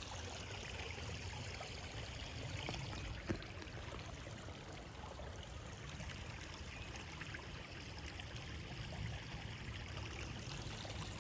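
A stream of clear water flowing and trickling steadily, with a single faint click about three seconds in.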